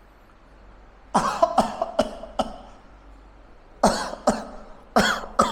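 A man coughing repeatedly in short, harsh fits: a quick run of about five coughs about a second in, then two pairs of coughs near the end.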